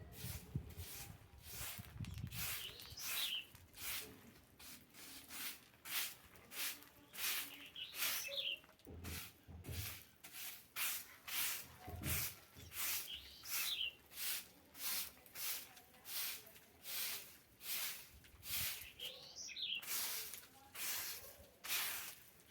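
Steady, even broom strokes on a floor, about one and a half a second. A bird gives a short call about every five seconds.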